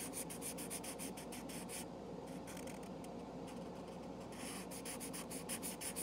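Felt-tip marker scratching on paper in quick back-and-forth colouring strokes, about five or six a second, thinning out for a couple of seconds in the middle before picking up again.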